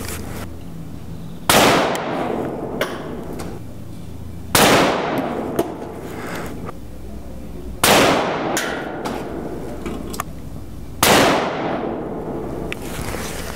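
Four semi-automatic rifle shots from a Zastava M59/66 (Yugoslav SKS) in 7.62x39 mm, fired about three seconds apart in slow aimed fire, each trailing off in echo, with a few faint clicks between shots.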